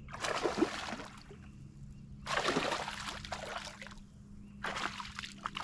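Hooked largemouth bass splashing at the surface in three bursts of about a second each, over a faint steady hum.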